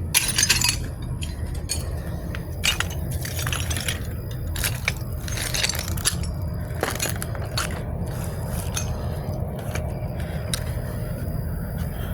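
Scattered light clinks and knocks over a steady low rumble, with the strongest near the start.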